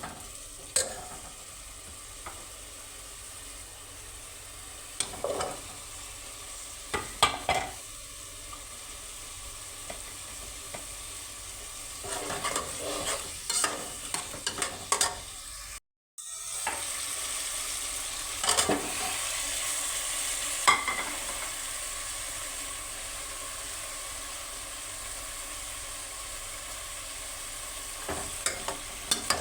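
Potatoes and cauliflower frying and sizzling in a pan, with a spatula scraping and clicking against the pan now and then as the vegetables are stirred. The sound drops out briefly about halfway through, and the sizzling is louder after the break.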